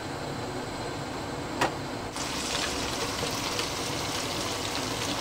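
Blended peanut paste sizzling and crackling in hot oil in a pan as it is scraped in from a blender jug. There is a single sharp knock about a second and a half in, and the sizzle grows louder from about two seconds in.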